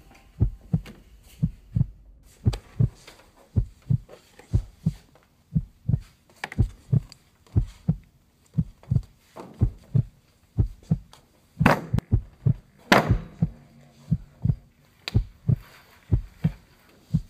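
Heartbeat sound effect: steady low double thumps, lub-dub, repeating evenly. Two louder rushing noises come about twelve and thirteen seconds in.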